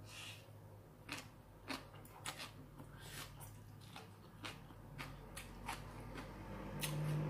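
A person chewing a mouthful of shredded green papaya salad and rice noodles, with short crisp crunches and wet mouth clicks roughly every half second, over a faint steady room hum.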